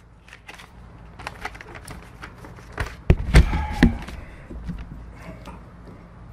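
Paper being handled and laid flat on a wooden lectern: crinkling and small knocks, picked up close by a microphone standing on the lectern. A few louder thuds come a little past halfway.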